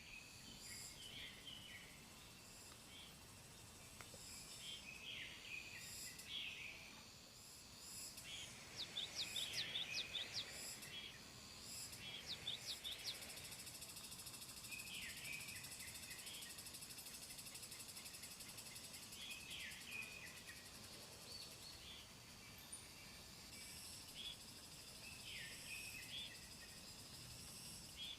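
Small birds chirping in short calls every few seconds, with a quick flurry of sharp rising chirps partway through, over a steady high insect drone.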